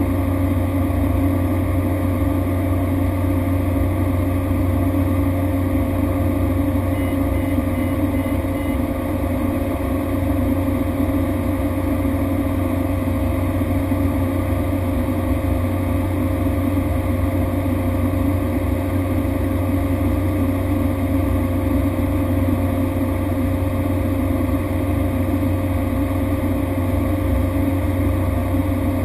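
Cessna Grand Caravan's Pratt & Whitney PT6A turboprop and propeller droning steadily in flight, with a constant hum and a steady mid-pitched tone.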